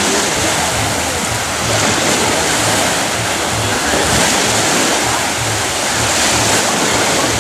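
Small waves breaking and washing up a sandy beach: a steady rush of surf with no pauses.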